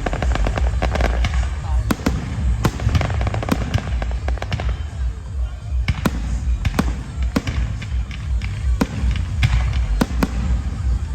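Fireworks bursting overhead: about a dozen sharp bangs at irregular intervals over a continuous low rumble.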